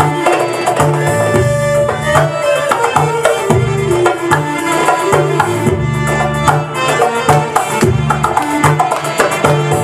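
Live Middle Eastern belly-dance music: accordion and keyboard carrying the melody over a steady hand-drum rhythm.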